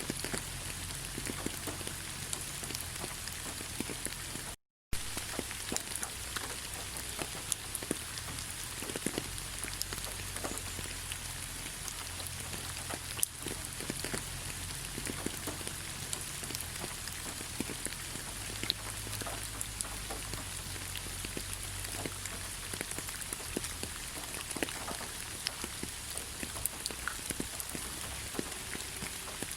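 Steady rain falling, an even patter with many individual drops ticking sharply over a low rumble. The sound cuts out completely for a split second about five seconds in.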